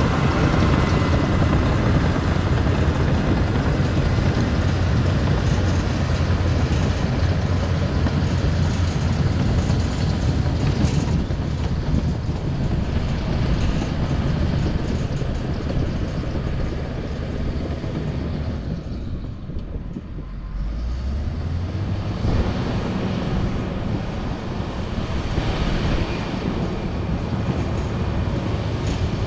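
Caterpillar D6H Series II bulldozer's six-cylinder diesel engine running steadily as the dozer works. It dips briefly about two-thirds of the way through, then revs back up with a rise in pitch.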